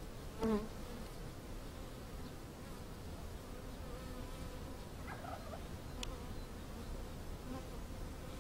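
Honeybees buzzing steadily around an opened hive as frames of brood are handled. There is one short louder sound about half a second in and a sharp click about six seconds in.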